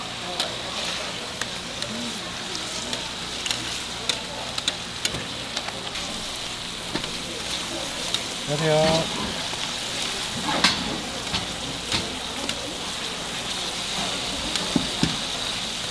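Tteok-galbi (short-rib patties) sizzling steadily on a hot flat griddle, with sharp metal clinks from the spatula and wire basket scattered throughout. A brief human voice sounds about halfway through.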